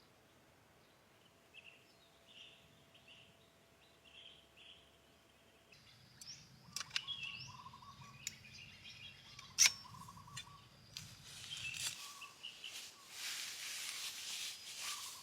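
Quiet jungle morning ambience with soft, short bird chirps. About six seconds in, a low hum and several sharp clicks come in with more chirping, and in the last few seconds a broad hissing noise rises.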